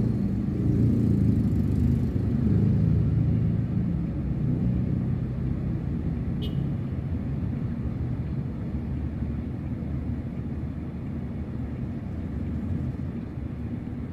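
Steady low vehicle rumble heard from inside a parked car, with one short click about six and a half seconds in.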